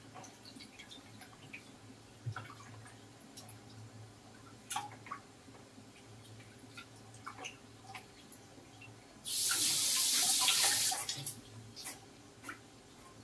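Hands washing green leaves in a plastic basin of water in a steel sink: small splashes, drips and light knocks. About nine seconds in, water runs hard into the sink for about two seconds, then stops.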